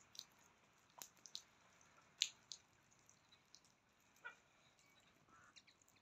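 Near silence broken by a few faint, sharp clicks, the loudest about two seconds in, and a short pulsed sound about four seconds in.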